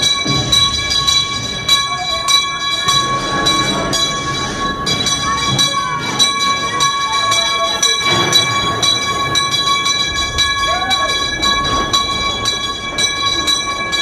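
Calico Mine Ride train cars rolling along the track, with frequent clicks and rattles from the wheels and a steady, high-pitched ringing tone throughout.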